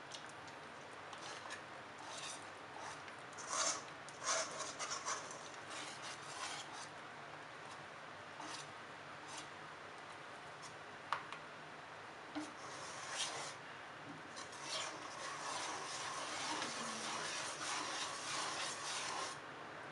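Wire balloon whisk stirring batter in a stainless steel bowl: irregular scrapes and light clicks of the wires against the metal, becoming steady, continuous whisking for the last five seconds or so.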